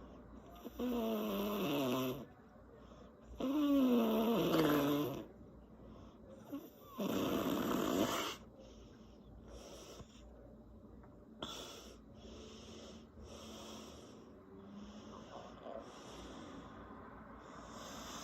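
A woman snoring with her lips flapping. Two loud snores come in the first five seconds, each with a tone sliding downward. A loud, rough breath follows about seven seconds in, then softer, shorter breaths about once a second.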